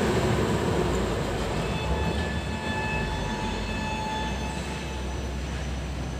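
Hamsafar Express passenger train rolling away, the rumble of its wheels on the rails fading steadily as the last coaches recede. A thin steady high tone sounds for a few seconds in the middle.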